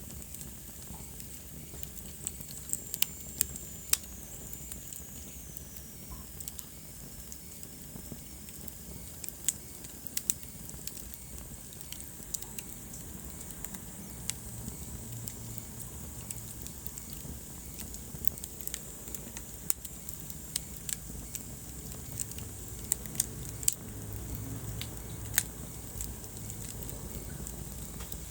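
Wood fire burning in a fireplace: a steady low rumble of flames with scattered sharp crackles and pops. A thin high whistle slides down in pitch a few seconds in.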